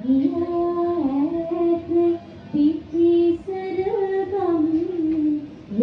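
A solo high voice singing a slow Sinhala Buddhist devotional song (bhakti gee), holding long notes and gliding between pitches.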